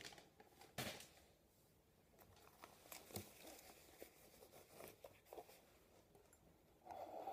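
Near silence with faint, scattered rustles of white denim shorts being handled and smoothed flat by hand, and a slightly louder soft rustle near the end.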